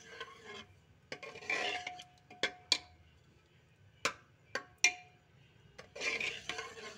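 A metal ladle stirring thick lentil dal in a metal cooking pot: rough scraping and stirring, with about half a dozen sharp clinks as the ladle knocks the pot, several leaving a short metallic ring.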